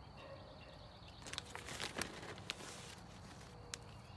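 Metal tongs clicking against a kettle grill's grate as mesquite wood chips are dropped onto the charcoal: a short rustle with a cluster of light clicks around the middle, and one more click near the end.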